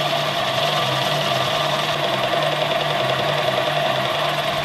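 Mini metal lathe running, its spindle turning a camera lens barrel while the cutting tool takes a light cut on the barrel's rear edge. A steady whine over a low hum that wavers in an even rhythm, about twice a second.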